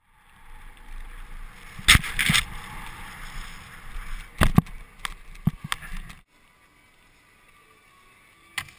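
Wind and snowboard-on-snow rushing on an action camera's microphone, with a series of sharp knocks about two, four and a half and five and a half seconds in. The rush cuts off suddenly about six seconds in, leaving a faint hiss and one more knock near the end.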